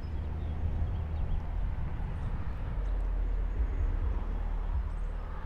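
A steady low rumble, slightly louder in the middle stretch.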